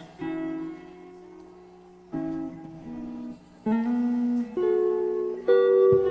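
Slow acoustic guitar music: plucked chords, each struck and left to ring, with a new chord about every one to two seconds.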